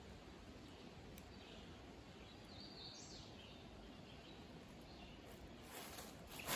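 Quiet forest ambience, with a few faint, high bird chirps in the middle, and a sudden crunch near the end.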